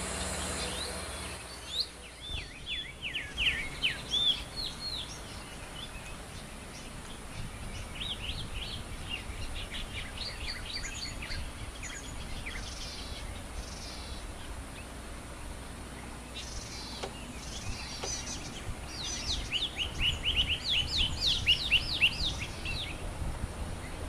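Small songbirds giving quick runs of short, high chirps, each note sweeping in pitch. The chirps come in bursts about two seconds in and again around eight to twelve seconds in, with a louder run near the end, over a steady low background rumble.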